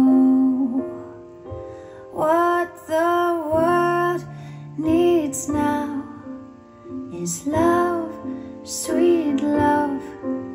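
Recorded song, a woman singing slow phrases over instrumental accompaniment, played back through Tannoy Monitor Gold 15-inch dual-concentric loudspeakers driven by a Sony TA-2000 preamplifier and TA-N90ES power amplifier.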